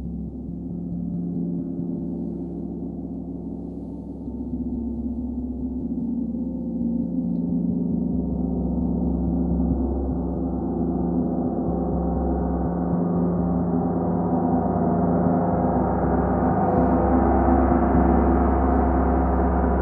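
A 36-inch Metatron gong played with a soft fleece-headed Olli Hess Moveline mallet, its sustained shimmering wash swelling steadily louder and brighter as the gong's higher overtones open up.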